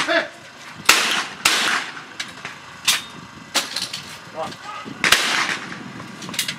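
Shotgun shots on a clay-target trap line. A pair of loud reports comes in quick succession about a second in, and another about five seconds in, each with a short echoing tail. Fainter shots and sharp clicks fall in between.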